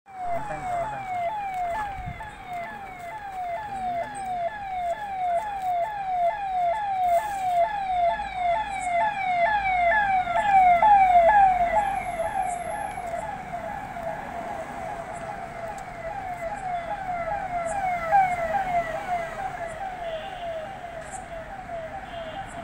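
Electronic siren of a motorcade escort vehicle wailing in quick falling sweeps, about two a second, growing louder to a peak about halfway through and then easing off as the convoy approaches.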